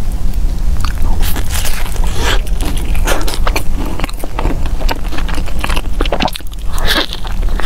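Close-miked biting and chewing of a seaweed-wrapped purple rice roll: irregular short, sharp crackles and clicks of mouth and food over a steady low hum.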